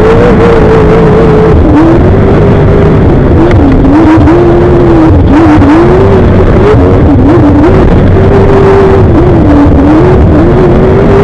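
Class 1 off-road race car's engine running loud and hard, its pitch rising and falling again and again as the throttle is worked.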